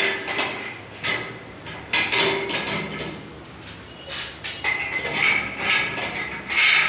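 Irregular sharp metal taps and clinks from a rolling shutter's steel spring pipe and coil springs being handled while a small pin is fitted at a spring collar.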